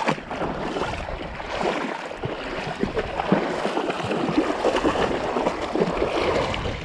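Shallow creek water splashing and sloshing, an irregular crackling wash as someone wades through it.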